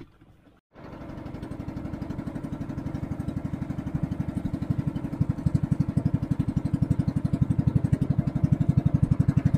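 Engine of a motorised outrigger boat running with a fast, even putter. It starts abruptly about a second in and grows louder over the next few seconds as the boat gets under way.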